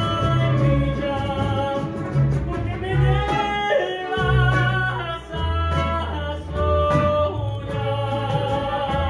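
Live mariachi music: violins and trumpets holding notes over guitars and a guitarrón's stepping bass line, with a man singing into a microphone.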